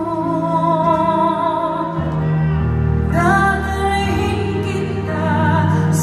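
A woman singing a slow ballad into a microphone, holding long notes with vibrato and moving to higher notes about three seconds in, over sustained band accompaniment.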